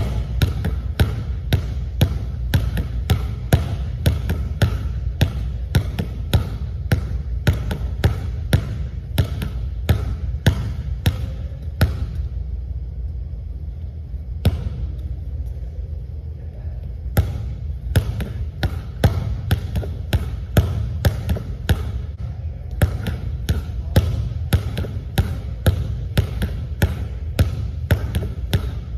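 A basketball dribbled hard on a hardwood gym floor, quick bounces at about two to three a second. The bouncing stops for a few seconds near the middle, with a single bounce in the gap, then resumes. A steady low hum runs underneath.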